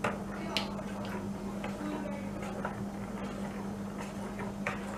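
A spoon clicking lightly against a bowl a few times while salt is mixed into watery rice batter, over a steady low hum.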